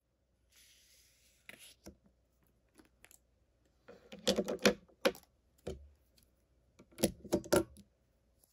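Plastic pens, markers and card sheets being set down on a wooden desk. A short sliding rustle comes first, then scattered hard clicks and taps in two busy clusters.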